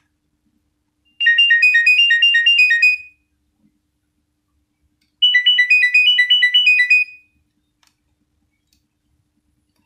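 Nokia 6100 mobile phone ringtone: a short, fast trilling phrase of high notes flicking back and forth, played twice, each time lasting about two seconds with a pause of about two seconds between.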